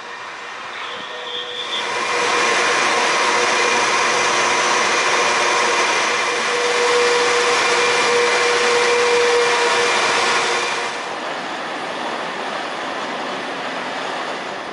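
Cable car winding machinery running: the big sheaves turning and steel haul cables racing over them make a loud, steady whirring rumble with a humming tone. It swells in about two seconds in and drops to a quieter steady running noise near eleven seconds.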